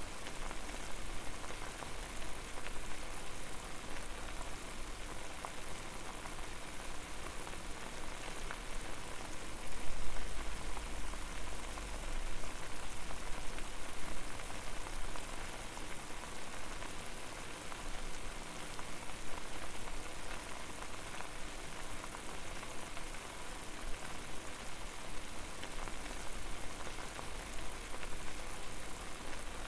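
Water boiling over a fire: a steady dense crackle of bubbling and popping, with a brief louder low rumble about a third of the way in.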